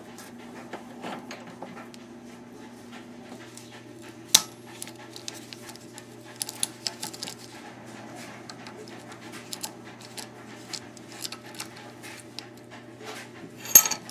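Scattered light clicks and metallic clinks of small grill parts and hand tools being handled during disassembly, with a sharp knock about four seconds in and a louder clatter near the end.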